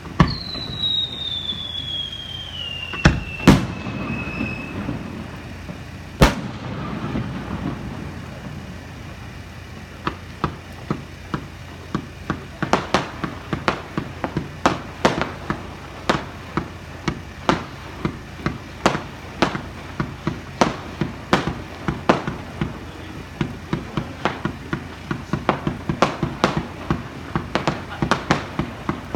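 Fireworks. In the first few seconds a whistle falls steadily in pitch and a few sharp bangs go off. From about ten seconds in comes a quick string of small pops, two to three a second and growing denser, as small rockets climb and burst.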